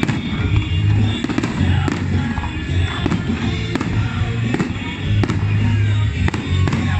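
Fireworks going off repeatedly, with many sharp bangs and crackles, over loud music.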